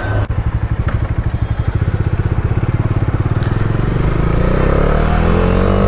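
Bajaj Dominar 400's single-cylinder engine running with an even rapid pulse at low revs, then revving up with a steadily rising pitch over the last two seconds as the motorcycle pulls away.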